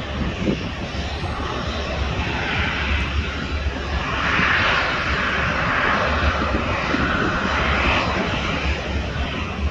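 Jet airliner engine noise: a continuous rushing roar over a deep rumble that swells from about four seconds in, then eases slightly near the end.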